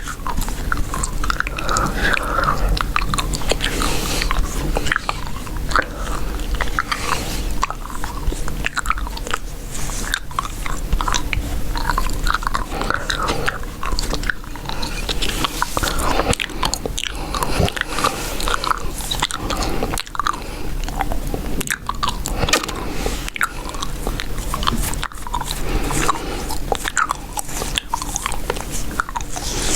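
Chewing gum close to the microphone: a continuous run of wet smacks and clicks from the mouth.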